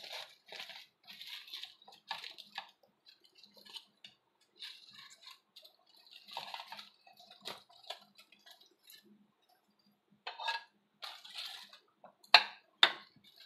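Aluminium foil crinkling and rustling in short spells as it is handled and peeled back, with two sharp knocks near the end that are the loudest sounds.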